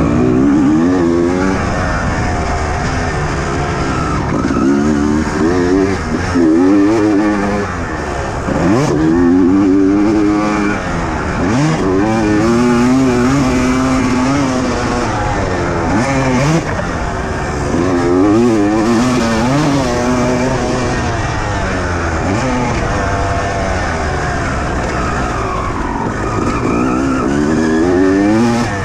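Motocross bike engine revving hard and dropping off again and again as it is ridden around a dirt track, the pitch rising through each gear and falling on each throttle-off, heard from the rider's own helmet camera.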